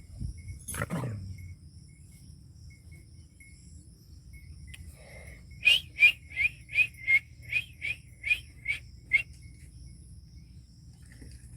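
An animal gives a single loud call that falls in pitch about a second in, then a quick run of about ten sharp, high-pitched yelping calls, about three a second. Crickets chirr steadily underneath.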